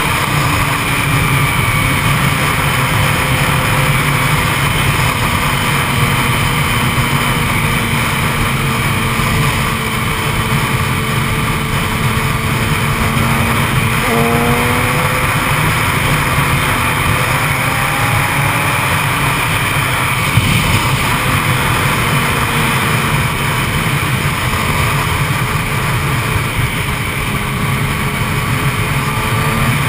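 Heavy wind rush over a helmet-mounted camera on a Yamaha YZF-R6 sportbike at highway speed, with the bike's inline-four engine note underneath. The engine pitch sags slowly, jumps up suddenly about halfway through, then falls away again.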